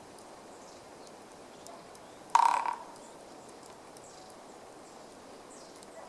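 Japanese pygmy woodpecker drumming: one short roll on a tree trunk, about two and a half seconds in, lasting under half a second and fading quickly.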